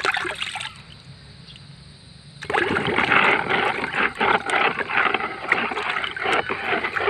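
Water sloshing and splashing in a plastic basin as a hand stirs it, dissolving 16-20-0 fertilizer granules into a drench. The sloshing drops away for about a second and a half shortly after the start, then picks up again.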